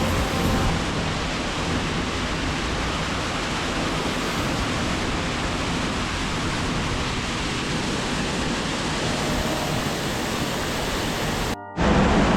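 Steady, even rushing of falling water from a waterfall. It cuts off abruptly near the end.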